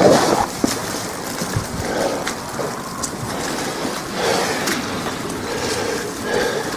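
Wind and wet snow falling on an umbrella held close over the microphone, as an even rushing wash with irregular swells and faint ticks. A brief louder bump comes right at the start.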